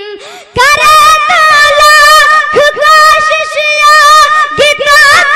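A high voice singing long, wavering melodic notes with no clear words, in the sung style of poetry recitation; it comes in strongly about half a second in and breaks briefly between phrases.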